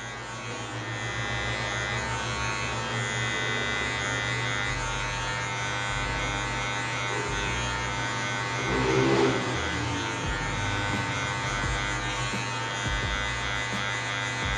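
Electric hair clipper with a half-size guard comb running steadily as it cuts short hair, a level buzz that swells briefly about nine seconds in.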